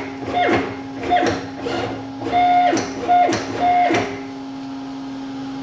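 Z-axis stepper motor on a mill stalling under command: it buzzes in about six short bursts, each falling in pitch, over a steady hum, without moving the axis. The owner has ruled out binding and takes the motor itself to be faulty.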